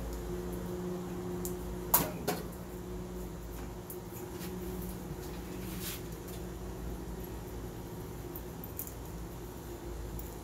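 Steady hum of an outdoor air-conditioning condenser unit, with two sharp clicks about two seconds in.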